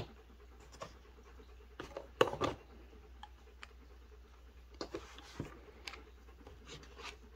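Light clicks and knocks of hand-handling a clear plastic tube of Byrna kinetic rounds and pulling off its plastic cap, with the strongest pair of clicks a little over two seconds in.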